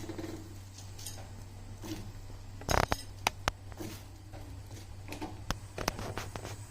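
Metal kitchen utensils and a pot clinking and clattering as cauliflower florets go into hot salted water: scattered sharp clinks, with a louder clatter about three seconds in.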